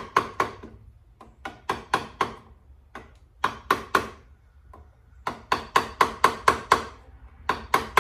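Hammer tapping a tight-fitting aftermarket air filter kit part down onto a chainsaw. The taps come in quick runs of several a second, with short pauses between the runs.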